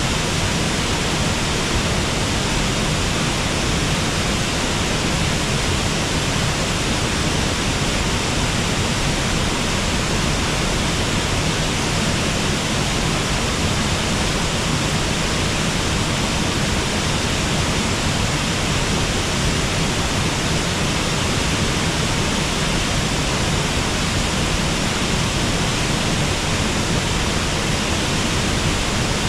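Water rushing steadily over a river waterfall: an even, unbroken wash of noise with no separate drops or splashes standing out.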